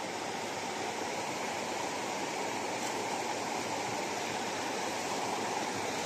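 Steady, even rush of water tumbling over rocks in a mountain stream.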